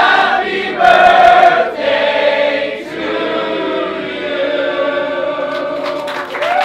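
A group of men singing together in harmony, several voices holding chords as one.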